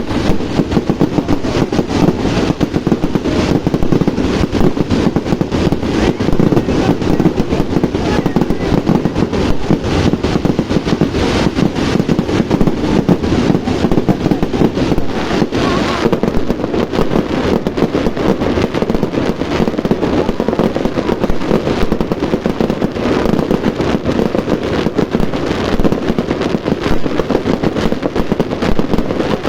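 A fireworks display going off in a dense, continuous barrage of rapid bangs and crackles with no pause.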